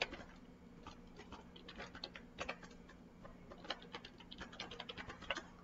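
Computer keyboard typing: faint, irregular keystrokes in quick runs with short pauses.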